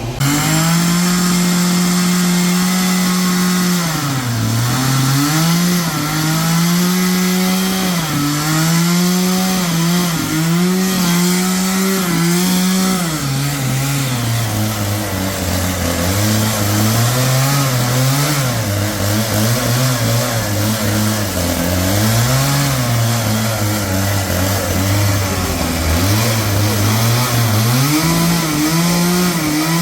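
Chainsaw running at high revs while cutting walnut wood; its engine pitch sags under load and picks back up, over and over.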